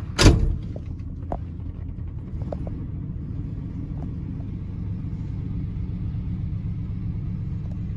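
Oldsmobile 350 two-barrel V8 idling with a steady low rumble. One loud thump comes just after the start, followed by a few light clicks.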